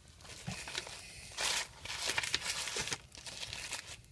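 Paper wrapper rustling and crinkling in uneven bursts as a take-out burger is unwrapped by hand.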